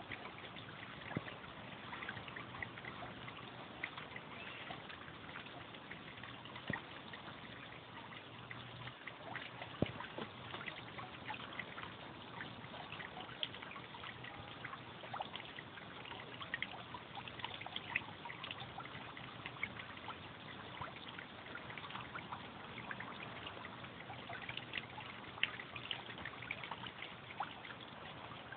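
Water trickling steadily, a constant watery hiss dotted with many small faint clicks.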